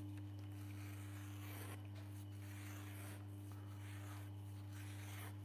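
Faint, intermittent rubbing and rustling over a steady low hum.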